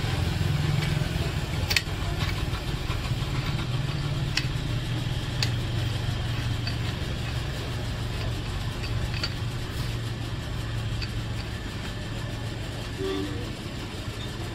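Steady low engine hum, with a few sharp metallic clicks as gearbox shafts and gears are set into a motorcycle's aluminium crankcase half.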